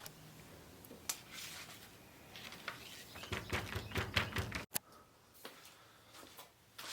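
Hand file working a gold ring: a quick run of short, sharp scraping strokes that stops abruptly about two-thirds of the way in, followed by a few faint scattered clicks.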